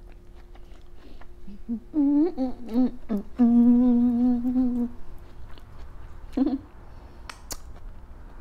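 A woman humming "mmm" with her mouth full as she chews, savouring the food. There are a few short rising hums about two seconds in, then one long held hum, and one more short hum near the end.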